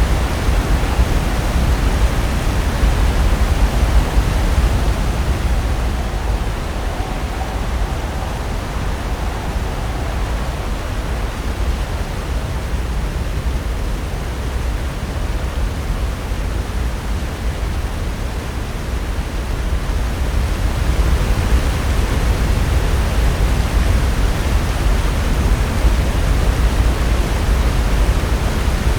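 Pacific Ocean surf: waves breaking on the shore in a steady, heavy wash of noise. It swells in the first few seconds, eases off in the middle and builds again after about twenty seconds.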